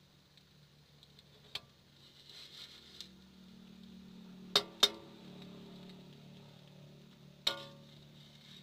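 Metal spatula clanking against a wok: a handful of sharp metallic strikes, the loudest a quick pair about halfway through and another near the end, over a faint steady hum.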